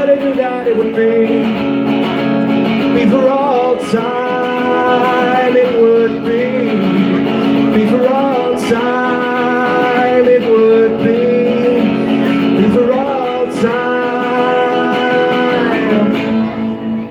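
Live song from a solo singer-guitarist: electric guitar chords under a melody of long held notes that bend and slide.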